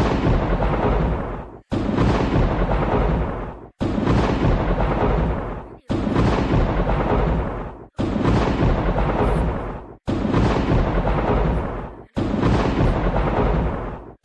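A thunder-crack sound effect played on a loop. Each play is a sudden loud rumbling crash that fades and then cuts off abruptly, and it repeats about every two seconds, seven times in a row.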